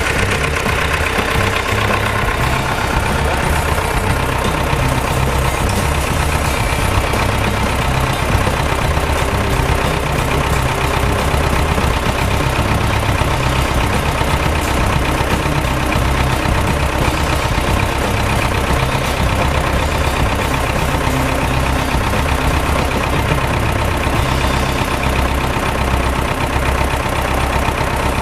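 Diesel engine of a Balkancar DV-1792 micro forklift running steadily at a low, even speed.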